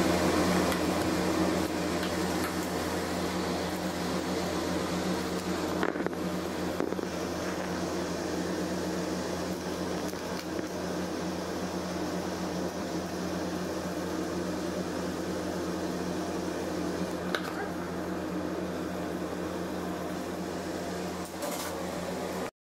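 Steady hum of a running motor, with a few faint clicks; it cuts off suddenly near the end.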